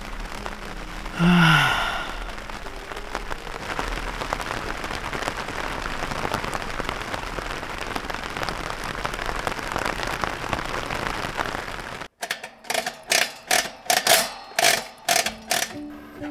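Steady rain pattering on a tent, a dense patter of fine drops, with a short vocal sound about a second in. Near the end the rain cuts off abruptly, and a series of about eight sharp strokes follows, roughly two a second.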